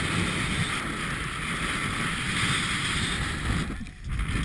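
Strong wind buffeting the microphone, a loud, even rushing noise that drops away briefly near the end.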